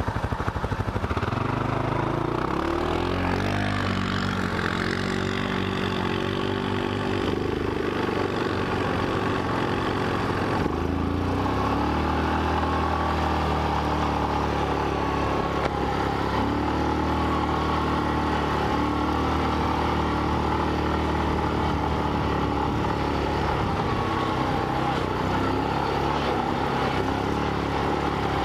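Single-cylinder 450 ATV engine running hard under load on a climb, close to the microphone. Its pitch climbs over the first few seconds, shifts around ten seconds in, then holds fairly steady with small rises and falls as the throttle changes.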